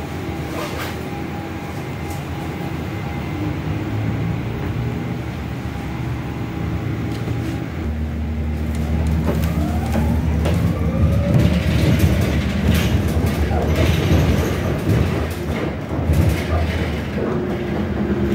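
City bus running, heard from inside the cabin: a steady engine hum, which grows louder about eight seconds in as the bus speeds up, with a whine that rises and falls and scattered rattles and clicks.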